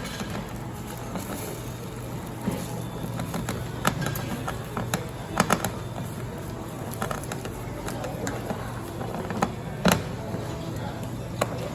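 Scattered clinks and knocks of cooking utensils over a steady low hum, with louder knocks about four, five and a half and ten seconds in.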